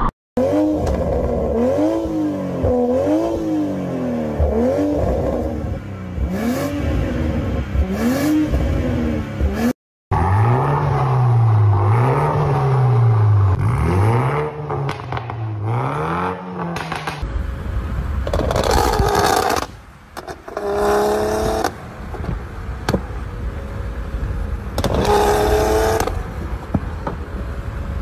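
Mk5 Toyota GR Supra engine and exhaust revved over and over, the pitch climbing and dropping about once a second, in three separate clips. The middle clip is a Supra fitted with an FI Exhaust system, revved at standstill with a deeper note. The last clip has a few separate louder blasts of revving from a Supra shooting flames from its exhaust.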